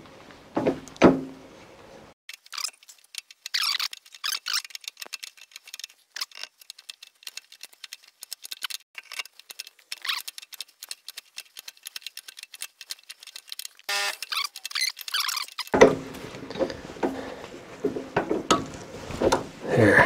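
A tap being turned by hand through a steel part to cut threads: a long run of small, irregular metal clicks and ticks. A few knocks come at the start, and fuller handling clatter sets in near the end.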